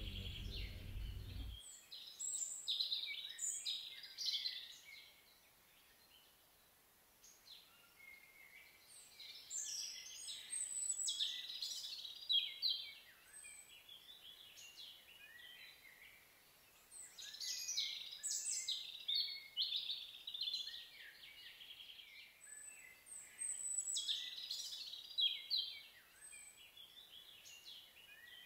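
Songbirds singing in bursts of quick, high chirping and trilling phrases, a fresh burst every few seconds with quieter gaps between. A low rumble stops in the first two seconds.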